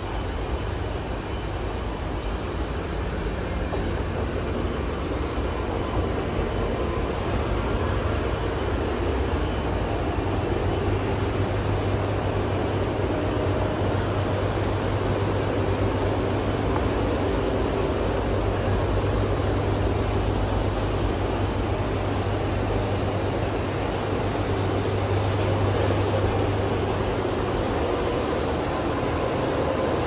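Steady mechanical drone of air-conditioner condenser units and ventilation ducts: a constant low hum under an even rushing noise.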